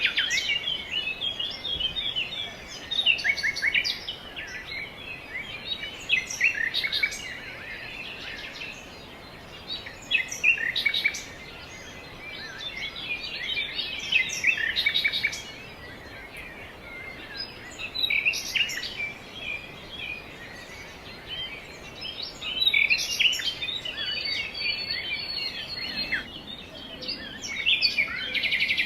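Several small songbirds chirping and twittering, in repeated bursts of quick high calls a few seconds apart, over a steady outdoor hiss.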